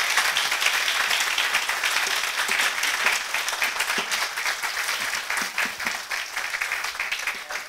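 Audience applauding: dense, steady clapping that slowly thins and fades near the end.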